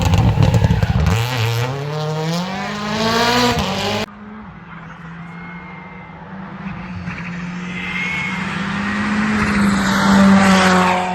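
Rally car engine accelerating hard, its pitch climbing sharply. After a sudden cut about four seconds in, another rally car is heard approaching, growing louder and then passing by near the end.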